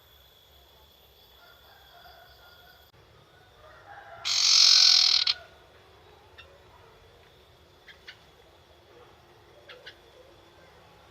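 Young wild-caught sirtu bird giving one harsh, noisy call about four seconds in, lasting about a second, then a few short sharp chips: the brief starter calls of a bird not yet in full song.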